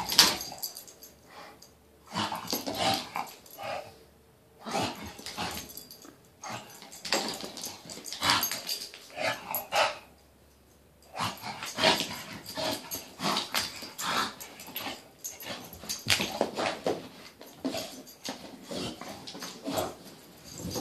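An English bulldog snorting and grunting as he noses a rubber Kong toy around a hard floor, the toy knocking and scraping against it. The noise comes in bursts of a few seconds with brief pauses between.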